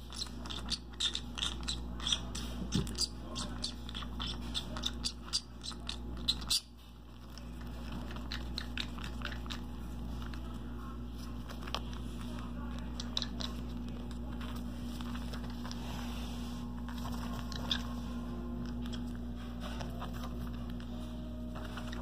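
Green-cheeked conure clambering on a camouflage jacket, its claws and beak making quick clicks and scrapes on the fabric and buttons, rapid in the first few seconds, then sparser. A low steady hum runs underneath, stronger in the second half.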